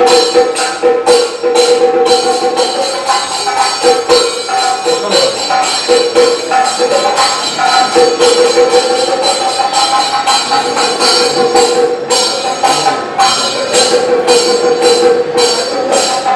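Live Kathakali accompaniment music: a voice singing long held notes over a steady rhythm of jingling metal percussion.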